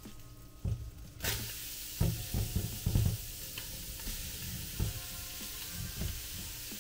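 Chopped onions and bell peppers going into a hot, oil-coated pot. Sizzling starts suddenly about a second in and keeps going steadily, with the knocks of a utensil stirring them.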